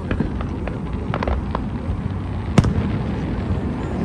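Aerial fireworks going off: a scatter of sharp pops and crackles, with one louder bang about two and a half seconds in, over a steady low background noise.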